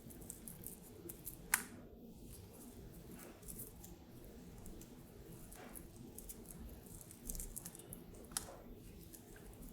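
Faint handling of narrow Velcro hook-and-loop tape strips as the halves are pressed back together, with small rustles and two sharp clicks, about one and a half seconds in and near the end.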